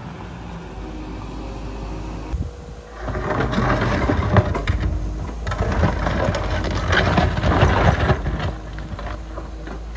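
Wheeled excavator's diesel engine running steadily, then from about three seconds in its wide levelling bucket scraping and dragging through soil and stones, a loud crunching with many knocks that eases off near the end.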